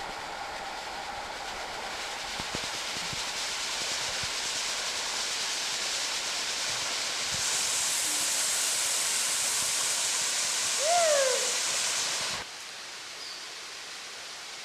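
Waterfall rushing with a steady noise that grows brighter and louder about halfway through. A short falling call sounds just before the rush cuts abruptly to a quieter level near the end.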